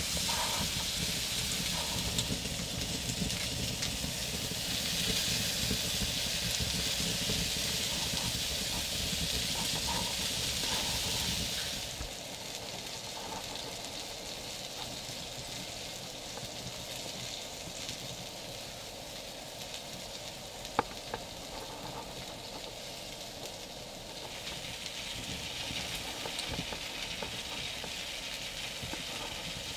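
Sausages sizzling on a grill grate over a wood fire, with fat dripping and spitting onto the embers. The hiss is louder, with a low rumble under it, for the first dozen seconds, eases off, then builds again near the end; one sharp pop comes about two-thirds through.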